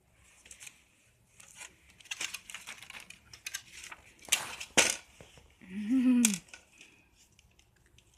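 Plastic clicks, scrapes and rattles of a computer keyboard being taken apart by hand, with a sharp click just before five seconds in. A short voice sound that rises and falls in pitch comes about six seconds in.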